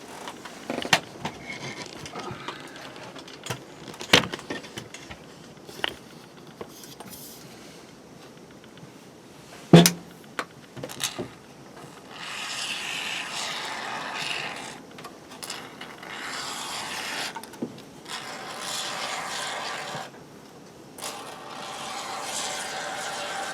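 Aerosol spray can squirting in four bursts of two to three seconds each, a hissing spray, after some handling clicks and one sharp knock about ten seconds in.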